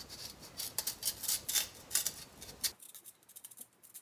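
A kitchen knife paring the skin off a lotus root in a quick run of short scrapes. The scrapes grow fewer and fainter after about two and a half seconds.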